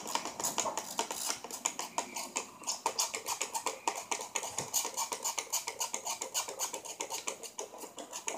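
A watery shampoo-and-toothpaste slime mixture being stirred fast in a bowl: a quick, continuous run of scraping, clicking strokes, several a second. The mix is still runny and has not thickened.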